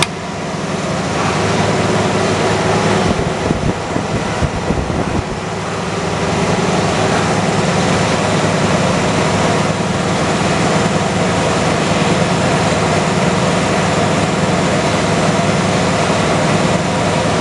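Turbocharger balancing machine running, its drive spinning the rotor at a steady 1000 rpm: a steady mechanical hum that builds over the first couple of seconds and then holds level.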